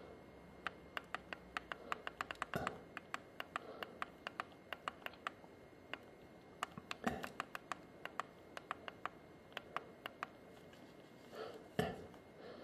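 Faint, repeated push-button clicks of a programmable floor-heating thermostat, often several a second with short pauses, as its buttons step the event time forward to 6:30.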